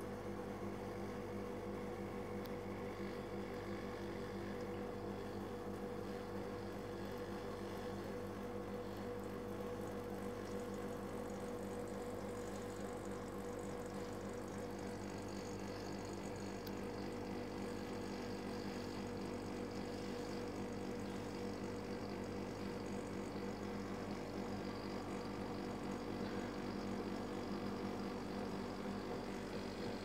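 Hermetic refrigeration compressor of a dehumidifier running with a steady hum, while the system is charged with liquid propane/isobutane refrigerant. A hiss of refrigerant flowing into the evaporator grows stronger in the second half.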